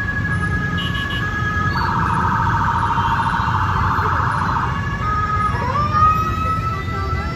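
Emergency vehicle siren sounding over heavy road traffic. It alternates between two notes, switches to a fast warbling yelp for about three seconds, then returns to a held note that glides up near the end. Low traffic rumble runs underneath.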